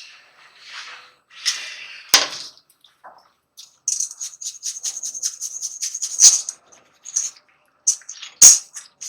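Quick rhythmic scrubbing strokes on a hand saw blade being cleaned, about six a second for a few seconds, with a few sharp knocks and clicks between.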